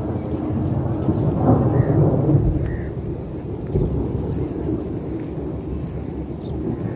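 Rolling thunder from a monsoon storm: a long, low rumble that swells to its loudest about two seconds in, then trails off into a steadier rumble. Rain falls throughout.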